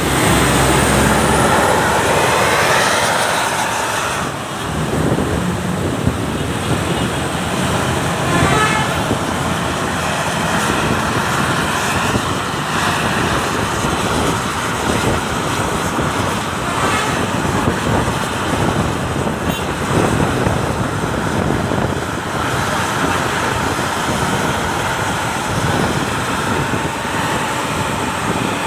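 Steady road traffic noise, a continuous rush of engines and tyres, loudest in the first few seconds, with faint horn toots a couple of times.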